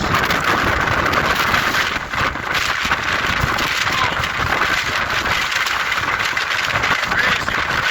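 Hurricane-force wind blowing steadily, with irregular gusts buffeting the microphone.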